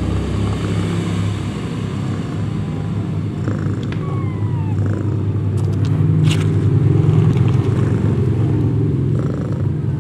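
Mother cat purring while her newborn kittens nurse against her: a loud, steady, low rumble.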